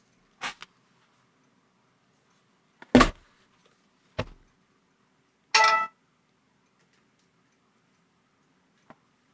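Scattered handling noise: a few short knocks and clicks, the loudest a thump about three seconds in, then a brief ringing tone a little before six seconds.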